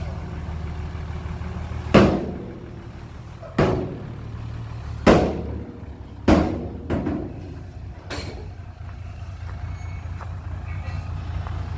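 Dump truck's diesel engine running while its raised bed tips out a load of soil, with six loud clanging bangs from the dump body, irregularly spaced about one to one and a half seconds apart, in its middle part.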